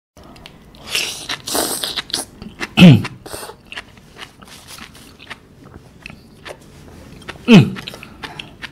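Close-up chewing of raw sea grapes (latok), with wet crunching and small popping clicks and a noisy slurping stretch early on. Twice, near 3 s and again near 7.5 s, there is a loud short throat sound falling in pitch as he chokes on the mouthful.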